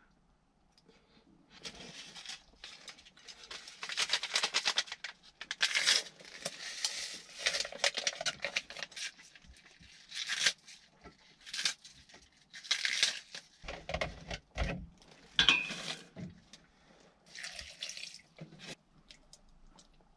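Cabbage leaves torn by hand into a metal pot of rice: crisp ripping and crackling in irregular bursts, with clinks of the pot and utensils and a few low thumps in the second half.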